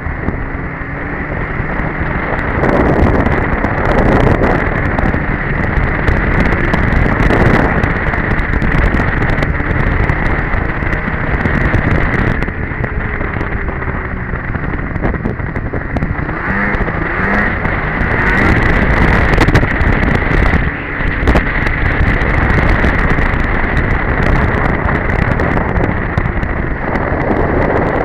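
A 2002 Polaris Edge two-stroke snowmobile running under way at a steady pace, its engine noise mixed with loud wind buffeting on the microphone.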